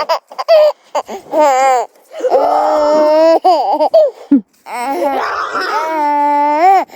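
A young child laughing and squealing in high-pitched bursts, ending in one long held squeal.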